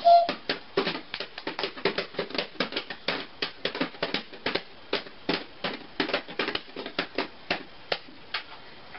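A baby patting and slapping plastic toy cups with its hands: a quick, uneven run of light taps, several a second, thinning out near the end.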